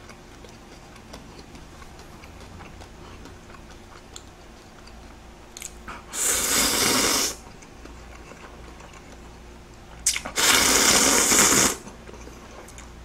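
A person slurping seafood ramen noodles from a bowl: two loud slurps, each about a second and a half long, about four seconds apart.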